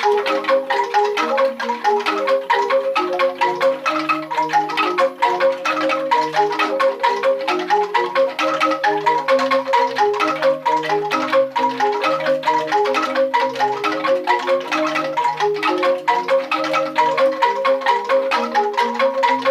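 A newly made set of bamboo angklung played on its own, with no other gamelan instruments: quick rattling notes at several pitches at once, a lower part stepping along under a busier upper melody.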